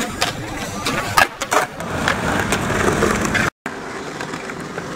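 Skateboard on concrete: a grind along a concrete ledge, then sharp clacks as the board hits and lands. After a brief dropout about three and a half seconds in, skateboard wheels rolling steadily on concrete.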